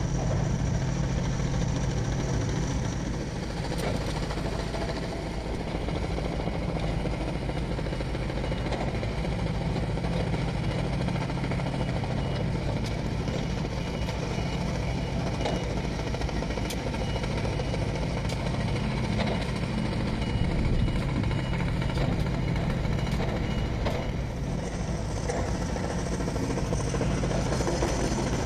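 Engine of heavy construction machinery running steadily with a low drone, with small knocks and clicks now and then.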